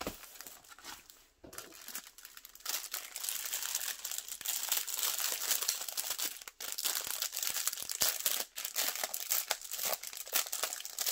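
A clear plastic bag of diamond-painting drill packets crinkling as it is handled. The crinkling is soft and scattered at first, then turns dense and steady from about two and a half seconds in.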